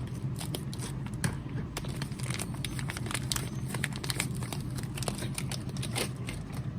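Plastic packaging crinkling and rustling in quick irregular crackles as a knurling tool holder is unwrapped by hand, over a low steady hum.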